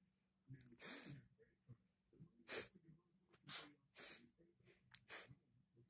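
Small dog snorting and huffing, a series of short breathy puffs of air about a second apart.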